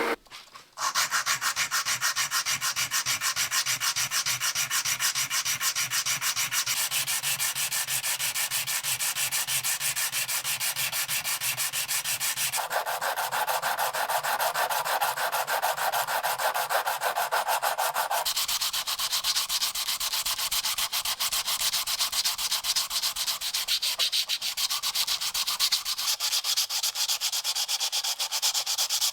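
Hand sanding of a metal part of an old time fuse: abrasive rubbed quickly back and forth in steady, rapid strokes. The sound's character shifts abruptly a few times.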